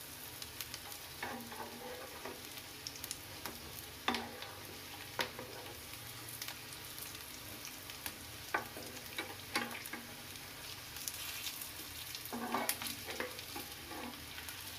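Vegetable tikkis shallow-frying in mustard oil in a pan, a steady sizzle, while a steel spatula turns them over, scraping and clacking against the pan several times.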